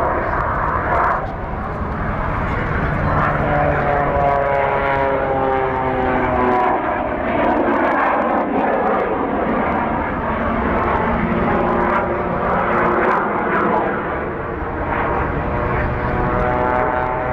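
Airplane engine droning as aircraft fly past; the engine tone slides down in pitch about four to seven seconds in as a plane goes by.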